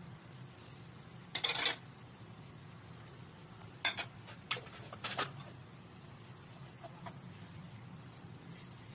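Cooking utensil clinking and scraping against a frying pan: one longer scrape about a second and a half in, then three short clinks between about four and five seconds, over a steady low hum.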